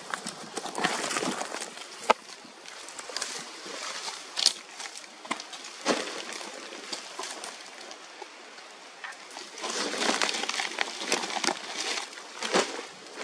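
Irregular rustling and scuffing close to the microphone, in surges, with a few sharp clicks or knocks.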